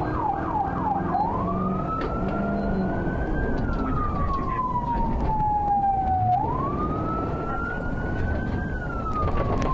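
Patrol car siren heard from the car itself: a few quick falling yelps, then a slow wail that rises and falls twice, over engine and road noise from the moving car.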